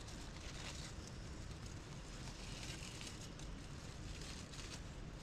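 Faint crinkling of aluminium foil as a foil packet is unfolded by hand, over a low, steady rushing background.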